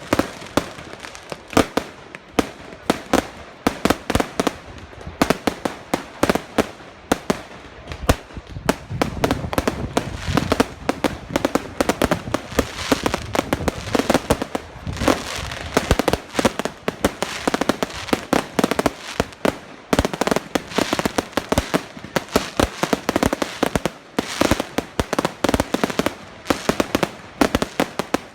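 Fireworks going off in quick succession: a continuous run of sharp bangs and crackles, with a heavier low boom about eight seconds in.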